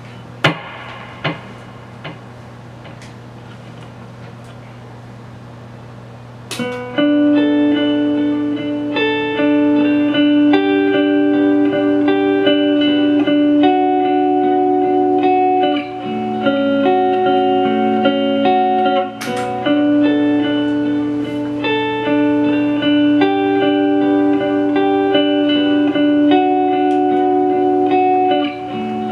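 Electric guitar picking a repeating pattern of clear single notes, built up as a loop on a Line 6 DL4 and played through a Marshall MG15 practice amp with its spring reverb turned all the way up. For the first six seconds only the amp's steady hum and a few handling clicks are heard before the notes come in; a lower line of notes joins about halfway through, and there is a sharp click about two-thirds through.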